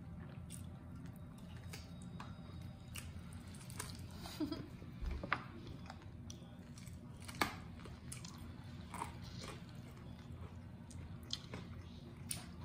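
A person chewing and biting into hot chicken wings up close, with scattered short, sharp clicks and crackles.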